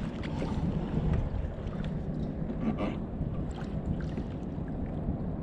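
Steady wind and water noise around a fishing kayak on open water, with a few faint knocks.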